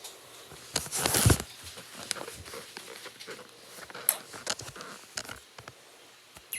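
A knife cutting and scraping into a bar of soap: crisp, crackly scrapes and small clicks, with one longer, louder scrape about a second in.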